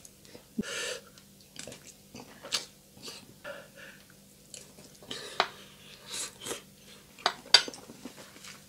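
Close-miked chewing and wet mouth smacks as a balut (fertilized duck egg) smothered in chopped chilies is eaten from a metal spoon, with a few sharp clicks of the spoon and breathy sounds in between.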